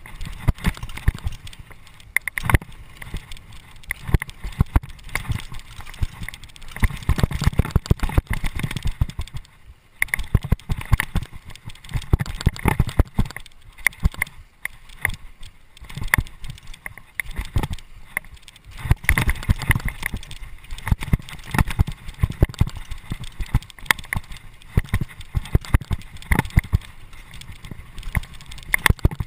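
Mountain bike rattling and clattering at speed over a rough dirt trail, with dense irregular knocks from the bumps and a brief lull about ten seconds in.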